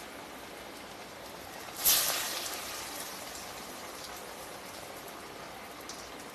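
Horse gram vadai deep-frying in hot oil in a steel kadai: a steady sizzle, with a sudden louder burst of sizzling about two seconds in that fades over about a second.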